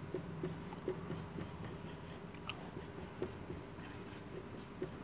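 Marker pen writing on a whiteboard: faint, scattered little taps and scratches as the strokes are made, over a low steady hum.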